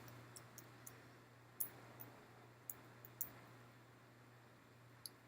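Faint, scattered small clicks and taps, about seven in all, from handling the Cat5 cable and its plastic RJ45 plug, over a low steady hum.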